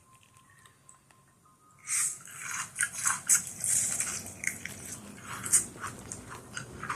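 Chewing leftover spaghetti close to the microphone: wet, irregular mouth smacks and clicks that begin about two seconds in, after a quiet start.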